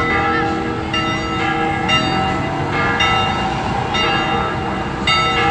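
Church bells ringing: several bells of different pitch are struck in turn, about one or two strokes a second, each ringing on over the next.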